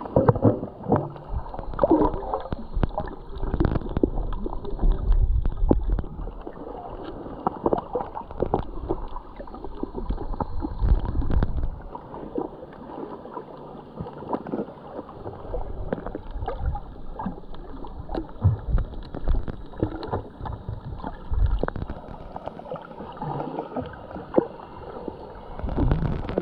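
Water sloshing and gurgling around a snorkeller swimming, in irregular surges with low rumbles.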